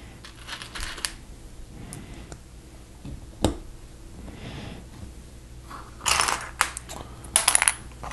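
Plastic Lego bricks clicking and rattling as they are handled and pressed onto a model, with a sharp snap about three and a half seconds in and clusters of clicks and rustling near the end.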